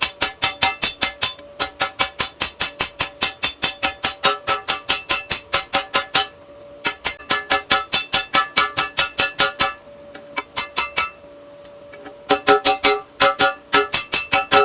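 Hammer blows ringing on steel and anvil while forging a small axe head, quick and regular at about five strikes a second. They stop briefly about six seconds in, then again for about two seconds near ten seconds in, when a faint steady ring hangs on.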